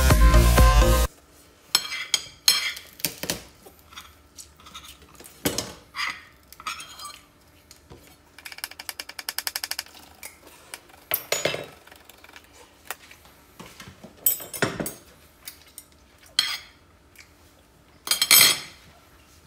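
Kitchen prep on a wooden cutting board: scattered knocks of a knife, with a quick run of chopping strokes about halfway through, and clinks and knocks of kitchenware. Background music cuts off about a second in.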